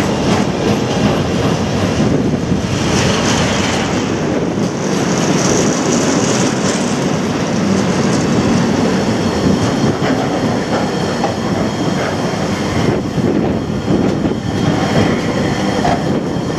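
Container flat wagons of an intermodal freight train passing close by at speed: a loud, steady rumble of wheels on the rails.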